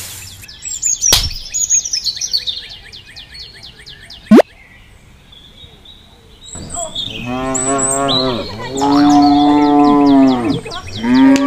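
Cow mooing: several long moos from about six and a half seconds on, the loudest sound here. Before them come rapid bird chirping in the first few seconds and a brief, loud rising whistle about four seconds in.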